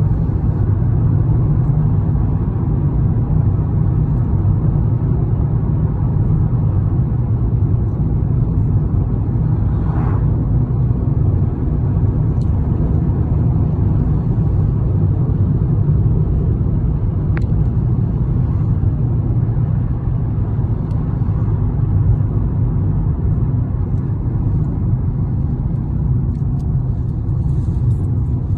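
Steady low rumble of a moving road vehicle: engine and road noise.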